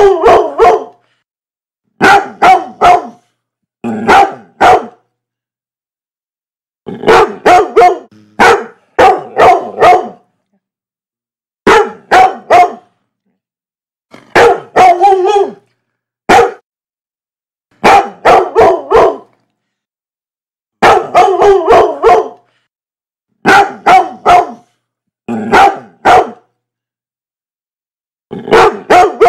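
Dog barking in quick volleys of two to four loud barks, the volleys repeating every second or two with clean silent gaps between them, as in an edited sound-effect track.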